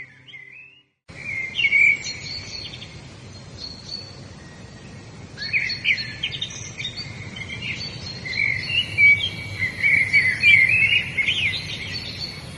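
Wild birds singing, with many quick chirps and trills over a steady background hiss. The songbirds start about a second in, after a brief silence. A faint high steady buzz, like insects, joins about two-thirds of the way through.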